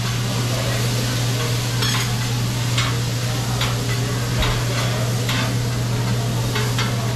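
Food sizzling on a hot griddle as a cook works it, with short sharp metal clicks and scrapes of the utensils every half second or so over a steady low hum.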